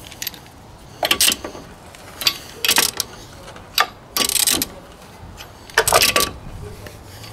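Socket wrench on a car's wheel bolts, giving short, sharp metallic clicking and rattling bursts, roughly one every half second to second, as the bolts are run down and snugged up with the car still on the jack.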